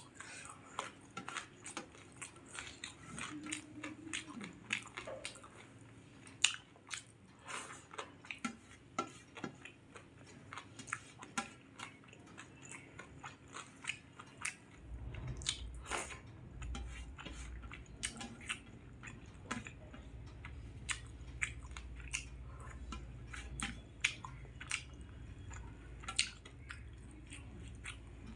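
Close-up chewing and biting: a person eating rice and curry with many small wet mouth clicks and smacks. A steady low hum comes in about halfway through.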